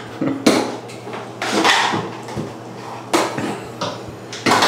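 Plastic beach toys, a shovel and a rake, banged against an empty bathtub and an upturned plastic bucket: several sharp, irregular knocks and clatters.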